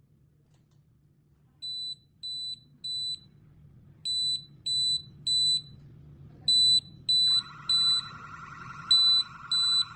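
Wi-Fi smart smoke detector sounding its alarm: high-pitched beeps in groups of three with a short pause between groups, the temporal-three fire-alarm pattern, louder with each group. A steady lower hum comes in about seven seconds in.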